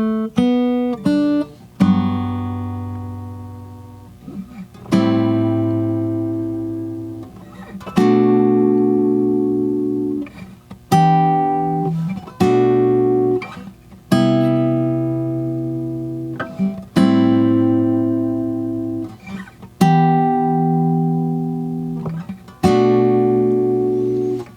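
Guitar intro to a song: a few quick plucked notes, then chords struck about every three seconds, each ringing out and fading before the next.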